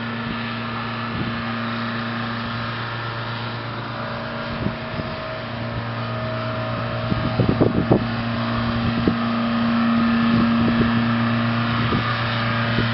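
A steady motor hum with a few fixed tones, growing somewhat louder past the middle, with a few short knocks about seven to eight seconds in.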